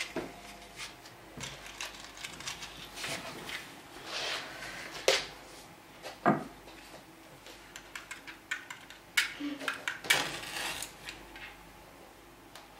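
Scattered small clicks, clinks and taps of small metal lamp holders and a matchbox being handled and set down on a table, with a few brief rustles.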